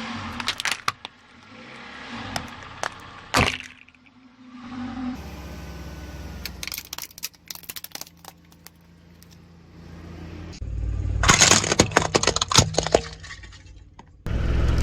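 A car tyre rolling over and crushing brittle objects: scattered sharp cracks, then a low engine rumble, then a dense run of loud cracking and crunching about two-thirds of the way in. Near the end a different loud, steady noise cuts in abruptly.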